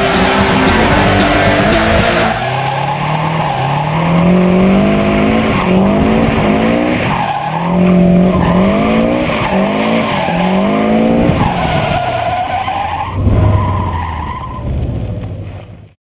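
Twin-charged, turbocharged and supercharged, flat-four engine of a 600 whp rear-wheel-drive Subaru STI drift car, revving up and falling off again and again as it drifts, over tyre skid noise. The sound cuts off suddenly near the end.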